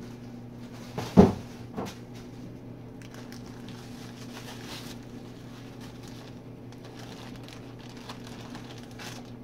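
Clear plastic bag and bubble wrap rustling and crinkling as a welded steel tube chassis is unwrapped by hand, with one loud thump about a second in and a smaller knock just after. A steady low hum sits underneath.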